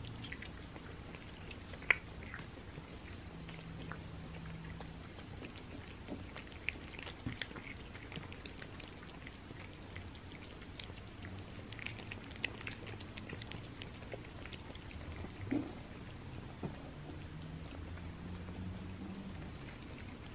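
Cats eating flaked wet cat food in gravy from small plates: scattered soft, wet clicks and smacks of chewing and licking, with a few sharper clicks.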